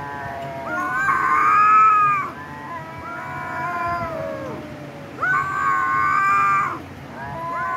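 Kittens mewing in long, drawn-out cries that overlap one another. The two loudest cries come about a second in and again past the middle.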